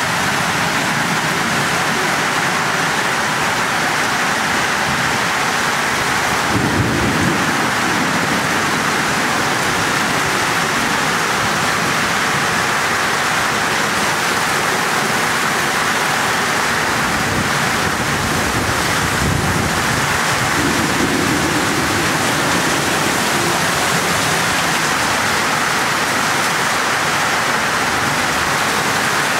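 Heavy rain pouring down steadily in a downpour, with brief low rumbles about seven seconds in and again around twenty seconds.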